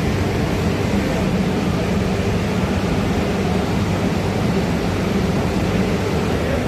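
Steady, loud background din of a busy exhibition hall: indistinct crowd noise and machinery blended into an even roar with a low hum.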